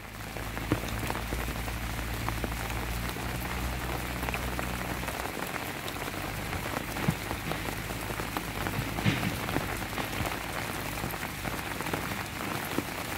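Heavy rain falling steadily, with many sharp drop ticks close by, as on an umbrella overhead. A low steady hum underneath stops about five seconds in.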